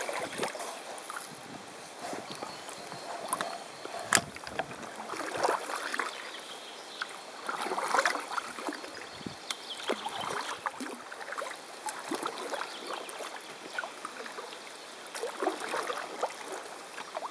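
Paddle strokes in river water: splashing and dripping surges, roughly one every two seconds, with water gurgling along the boat and a sharp knock about four seconds in.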